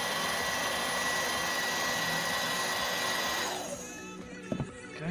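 Heat gun blowing a steady hiss with a faint high tone as it softens the glue holding a plastic headlamp lens, then dying away about three and a half seconds in. A couple of light knocks follow near the end.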